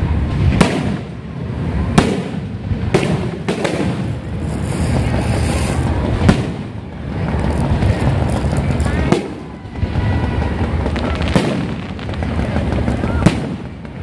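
Aerial firework shells bursting overhead: about eight sharp booms at uneven intervals, one to three seconds apart.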